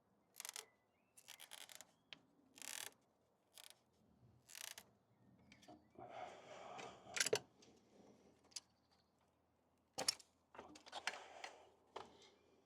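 A stuck engine pipe on a 2003 Audi A4 being worked free of its fitting by hand: a run of short scraping and rubbing noises, with a sharp click about seven seconds in and another about ten seconds in.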